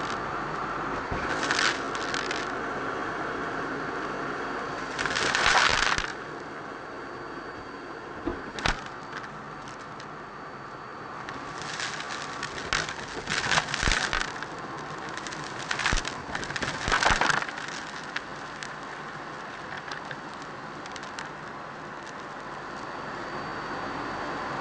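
Vacuum cleaner running steadily with its wand on a pile of dust and debris on carpet. There are several loud crackling, rattling bursts as grit and bits are sucked up the tube: once early, once around five seconds in, and in clusters in the middle.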